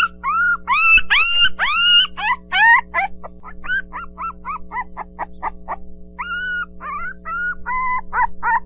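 Young puppies whimpering and yipping: a rapid run of short, high cries, each arching up and down in pitch, several a second. The cries turn briefly shorter and quieter partway through, then pick up again near the end.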